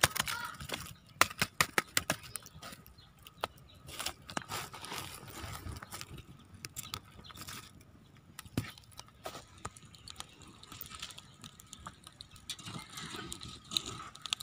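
Small open cooking fire crackling, with sharp pops scattered through and thickest in the first couple of seconds.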